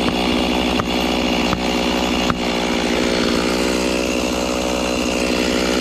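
Chainsaw running steadily at full throttle, held at one constant pitch while cutting into a tree trunk during a felling cut.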